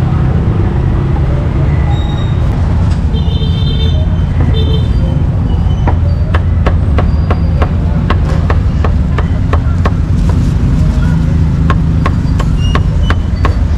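Meat cleaver chopping roast pork on a thick round wooden chopping block: a run of quick, sharp knocks from about halfway in, several a second, over a steady low rumble.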